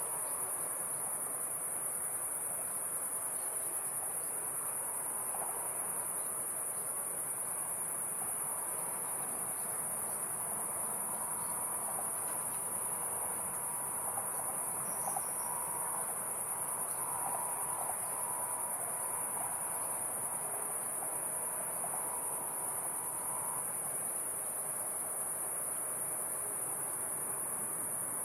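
Crickets chirring in a steady, high-pitched chorus that never breaks, over a faint low wash of background noise.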